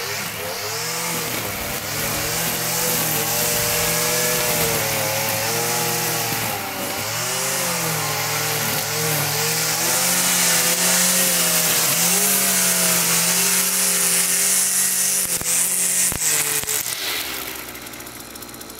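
Two-stroke gas string trimmer running at high revs, its pitch wavering up and down as it is worked, getting louder over the first few seconds. Near the end the engine drops back towards idle.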